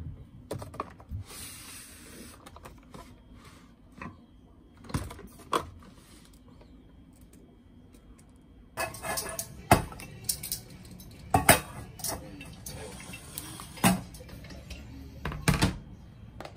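Irregular clicks, knocks and clatter as plastic-capped spice bottles and a grinder are handled in a plastic basket, and a plastic cutting board is set on the kitchen counter. The knocks are sparse at first and come thick and loud in the second half.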